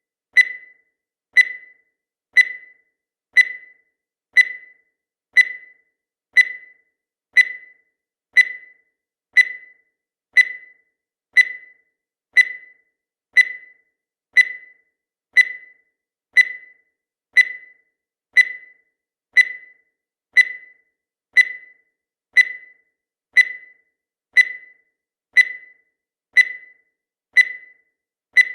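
Countdown timer's sound effect: a short, high electronic blip once every second, each one starting sharply and dying away quickly, marking the seconds as they count down.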